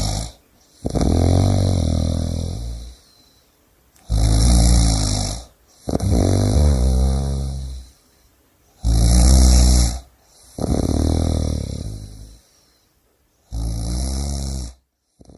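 A person snoring heavily with a low, rattling snore. The snores come in pairs, a shorter one followed by a longer one, with short pauses between them, through about three breathing cycles.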